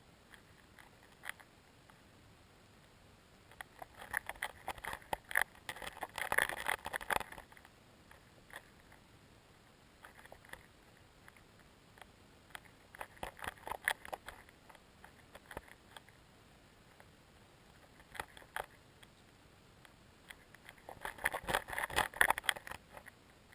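Underwater crackling and clicking that swells into dense bursts about every eight seconds, three times, with a few lone clicks between.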